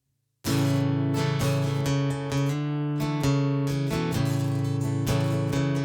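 Acoustic guitar strumming chords in a steady rhythm, starting abruptly about half a second in after a moment of silence: the instrumental intro to a worship song.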